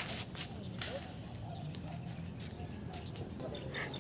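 Faint insects chirping in a high, pulsing trill against quiet rural ambience.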